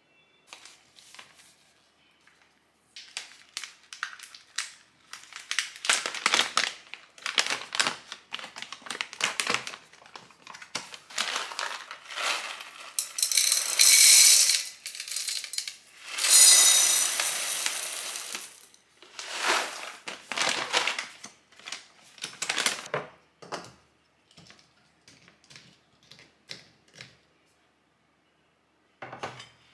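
Whole coffee beans poured from a foil-lined bag into a glass jar, clattering against the glass, loudest in two long pours in the middle. Around them come shorter bursts of the bag's crinkling and beans rattling as the bag and jar are handled.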